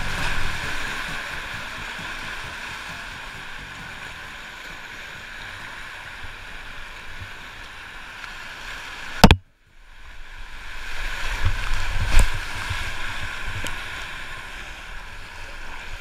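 Whitewater rapids rushing past a kayak, heard as steady water noise on an action camera. About nine seconds in there is a sharp click and the sound drops out briefly, then the rushing water returns with low rumbles and a knock a few seconds later.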